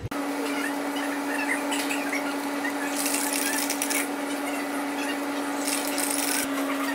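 Steady mechanical hum of laundromat machines running, with two brief, brighter hissing, rattling stretches about three and six seconds in.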